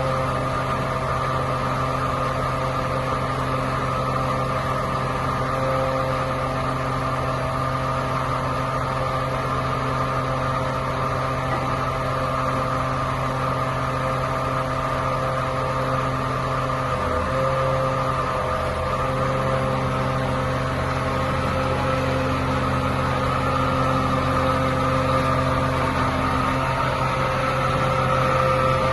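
Mercedes-Benz Actros concrete pump truck's diesel engine running steadily, with a steady high whine over the engine note. The pitch dips briefly a little over halfway through, then holds.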